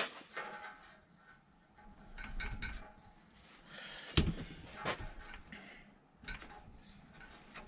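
Workshop handling noises: small metal parts clinking and a paper gasket being fitted on a steel tractor oil pan. There is a sharp knock about four seconds in and another about a second later.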